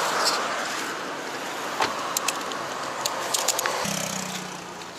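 A small hatchback car driving past on the road, its tyre and engine noise fading, with a few sharp clicks. Near the end the sound changes abruptly to a low steady hum.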